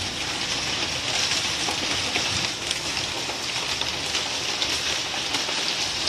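Hail and heavy rain falling on wet concrete: a steady hiss dotted with many small sharp ticks of hailstones and drops striking.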